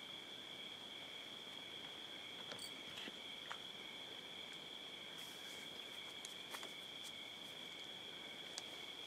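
Night insects chirring steadily in two high continuous tones, with a few faint light clicks over them.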